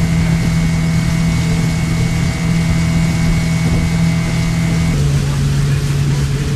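Outboard motor of a fishing boat running steadily at speed, a loud even hum over the rush of water and wind. About five seconds in, the hum steps down a little in pitch.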